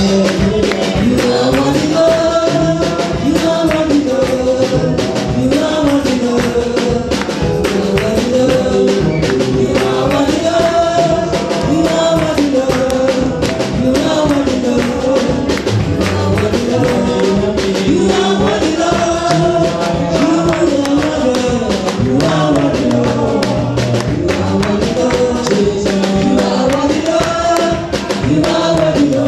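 Gospel worship music: a choir and congregation singing with a band and tambourine keeping a steady beat.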